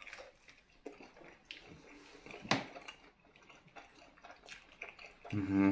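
Person chewing a mouthful of pie: faint wet mouth clicks, with one sharper click about two and a half seconds in. A brief hummed 'mm' from the eater near the end.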